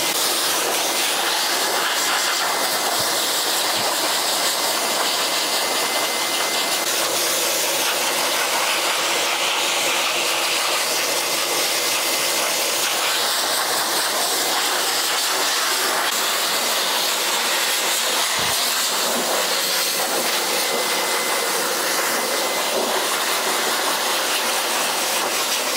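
Pet grooming blow dryer, a hose-and-nozzle force dryer, blowing a steady rush of air into a dog's thick coat.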